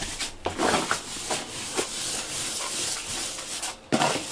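Rubber grooming brush being stroked through a cat's fur close to the microphone: a rubbing, rustling sound in repeated, uneven strokes.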